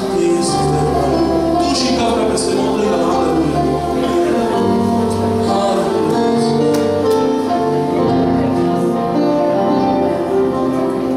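Electronic keyboard playing slow worship music, held chords over a bass line, with a voice singing along at times.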